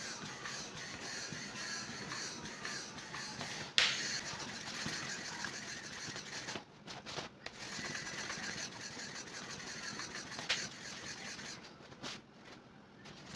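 Manual hand air pump being worked to inflate the vinyl ring of an inflatable kids' paddling pool, with the plastic rustling and a sharp click about four seconds in. The sound breaks off briefly about halfway through and again near the end.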